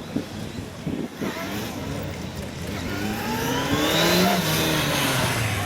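Police motorcycle engine working through a slalom: short throttle blips in the first second or so, then the revs climb steadily from about three seconds in, peak about a second later, and ease off as the throttle closes.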